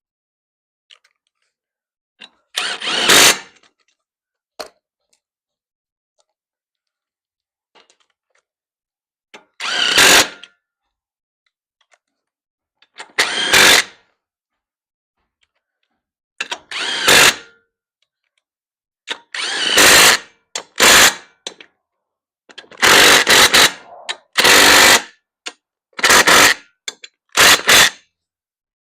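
Impact wrench run in short hammering bursts, driving fasteners home. There are about ten bursts, spaced several seconds apart at first and coming quicker near the end.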